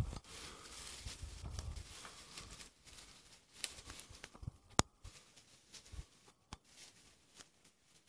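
Faint rustling with scattered sharp clicks; the loudest click comes a little under five seconds in. A low rumble sounds during the first two seconds.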